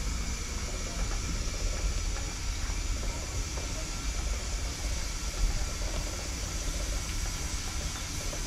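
Narrow-gauge steam locomotive heard from its own footplate while running: a steady low rumble with a faint hiss of steam.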